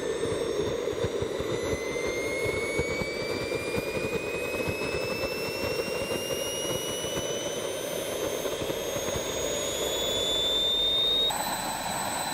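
Small turbojet engine on an electric scooter spooling up: a high whine that climbs steadily in pitch over the rush of its exhaust. The whine breaks off suddenly about a second before the end, leaving a steadier, higher tone.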